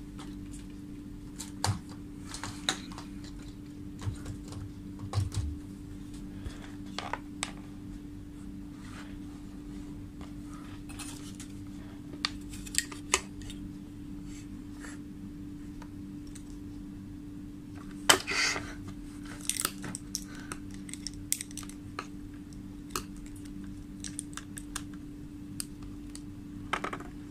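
Small, irregular clicks and rattles of wires, a multi-tip DC power adapter plug and multimeter test leads being handled on a workbench, the sharpest click about two-thirds of the way in, over a steady low hum.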